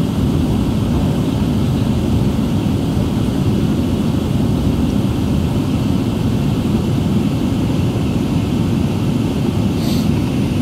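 Steady low rumble inside the cabin of a taxiing Airbus A380: the four engines at taxi power and the aircraft rolling, heard through the fuselage.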